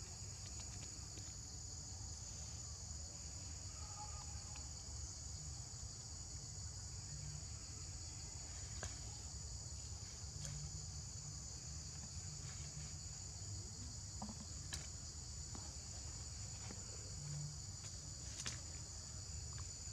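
Steady high-pitched drone of insects, with a few faint clicks scattered through it.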